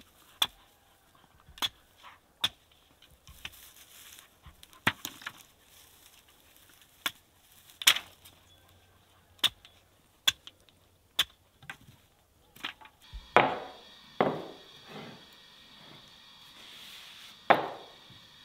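Sharp knocks on a wooden board in the kitchen, one at a time at irregular intervals of about a second. In the last five seconds come louder knocks that ring on briefly.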